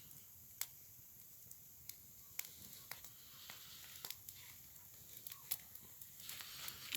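Campfire crackling quietly, with sparse sharp pops at irregular moments, about one a second. The fire noise grows louder near the end.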